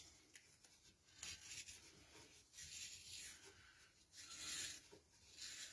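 Painter's tape being pulled off the roll and wrapped around the end of a wooden workpiece: several faint, short rasping strokes.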